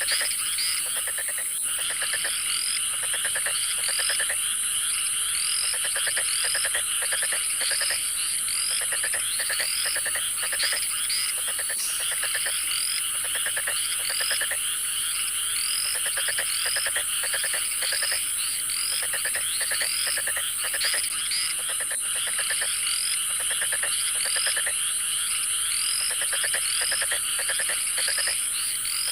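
A chorus of frogs calling in dense, rapid trills, over a steady high insect drone, with short rising chirps repeating about once a second.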